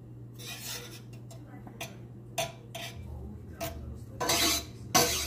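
A utensil scraping and clinking against a stainless steel pan as melting margarine is stirred: a handful of short, irregular strokes, the longest about four seconds in, over a low steady hum.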